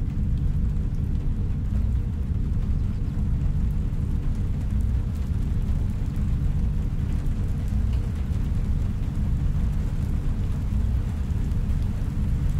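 Sci-fi room ambience: a steady deep rumbling drone with faint low hum tones, unchanging throughout.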